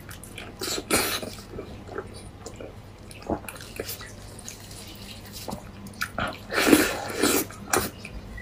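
Close-up wet chewing and lip-smacking of saucy braised meat eaten off the bone, in irregular sticky clicks and smacks. A louder run of smacking comes about six and a half seconds in.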